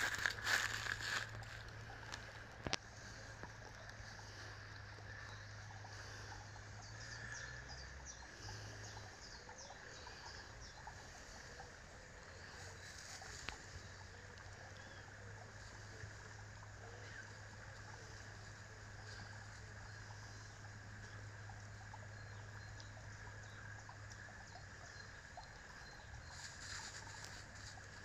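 Steady outdoor woodland ambience with a small brook trickling. Dry fallen leaves crunch and rustle underfoot about the first second, and briefly again near the end.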